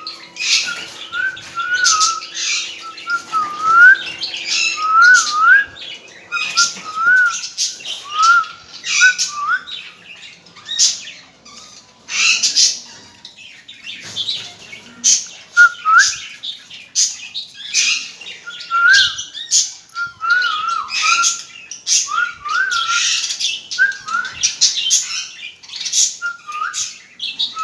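Caged pet parrots (rose-ringed parakeets and budgerigars) calling constantly: a stream of short chirps that rise in pitch, mixed with harsh, shrill squawks.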